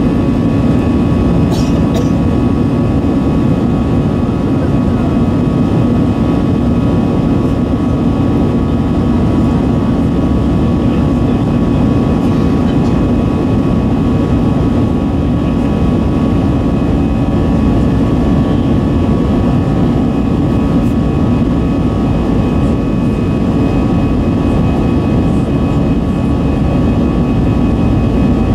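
Airbus A320's CFM56-5B turbofan engines heard inside the cabin from a seat over the wing during the climb after take-off: a steady, loud roar with a few steady whining tones over it.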